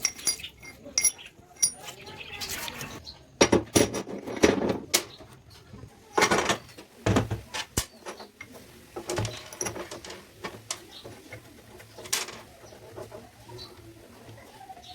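Irregular clinks, knocks and short scrapes of metal parts and tools being handled and fitted by hand, with no power tool running.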